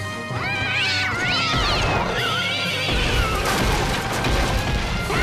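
Cartoon kitty cow meowing: a few rising-and-falling cries over background music. From about three seconds in, a loud rumbling clatter follows.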